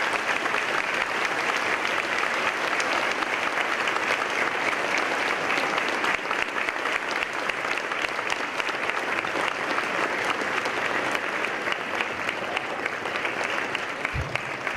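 Audience applauding: dense, steady clapping that eases slightly near the end.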